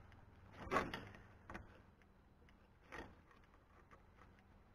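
A few quiet clicks and taps of plastic as a drip emitter's barbed stem is pushed and worked into a punched hole in polyethylene drip tubing, the loudest about a second in.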